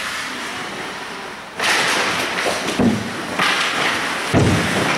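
Ice hockey play at close range: skate blades scraping and carving the ice, which turns loud suddenly about a second and a half in, with two dull thumps, one near the middle and one near the end.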